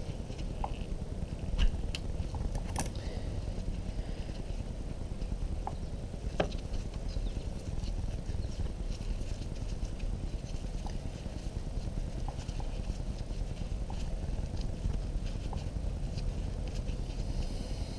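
A few sharp clicks and light knocks of hand tools and metal parts being worked on the motorcycle's handlebar controls, the loudest near the start, over a steady low rumble.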